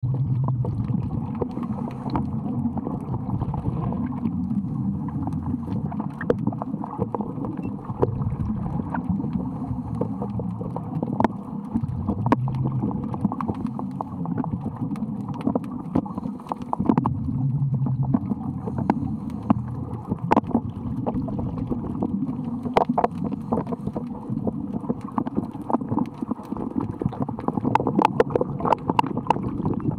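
Muffled underwater sound picked up through a camera's underwater housing: a steady low rumble with frequent sharp clicks and taps at irregular intervals.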